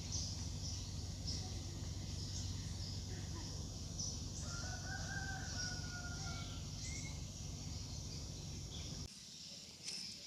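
A rooster crows once, a long level call starting about four seconds in. Underneath run a steady low rumble and repeated high chirps. The rumble stops abruptly near the end.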